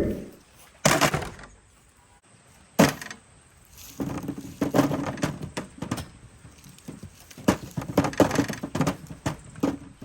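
Sharp knocks and clattering handling noises: two single knocks, then a long, irregular run of clicks and knocks.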